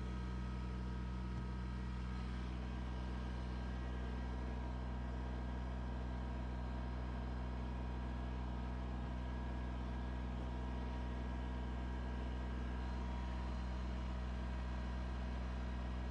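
Kubota BX23S sub-compact tractor's three-cylinder diesel engine running steadily at an even speed, with no revving.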